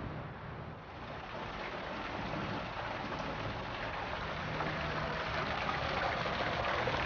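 Small waterfall splashing onto rocks into a pool: a steady rush of falling water that grows louder from about a second in.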